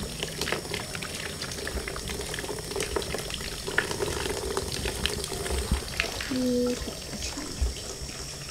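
Water running from an outdoor tap over hands being washed and splashing onto the ground below, a steady trickling with small splashes.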